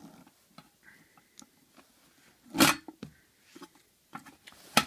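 Handling noise from a Trangia cook set's strap being unbuckled and pulled off the aluminium pots: small scattered clicks and rustles, with a louder sharp clack about two and a half seconds in and another near the end.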